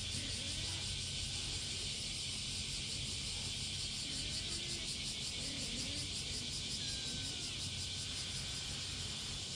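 Steady outdoor background noise: a constant high hiss over a low hum, with no distinct sound standing out.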